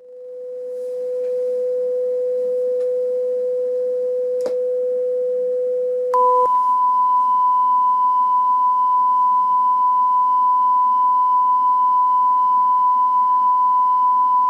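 Steady test tone of about 500 Hz fading in, with a single click a few seconds in; about six seconds in it gives way to a louder, higher steady tone of about 1 kHz. The tones are played back on a TEAC V-8030S cassette deck.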